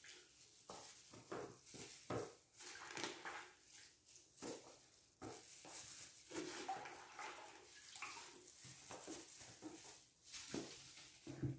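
Faint, irregular handling sounds of white cheese being repacked by hand: rustling plastic gloves, wet cheese pieces lifted from a brine bucket and set into plastic tubs, with soft knocks on the plastic.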